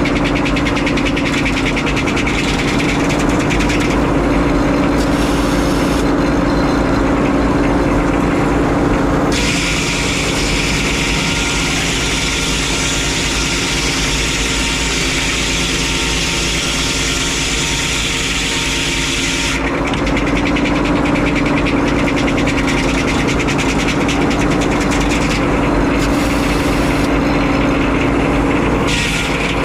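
Frick 01-C circular sawmill running steadily with a constant engine hum. For about ten seconds in the middle a harsher, denser hiss joins it, as the blade cuts through a pine log.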